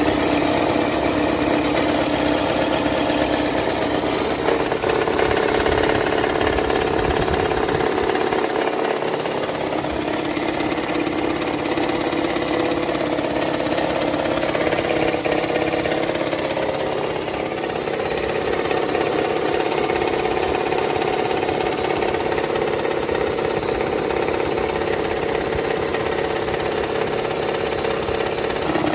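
Car engine idling with a knocking noise. The knock comes from a cracked flex plate whose inner-plate weld has given way, not from the engine itself.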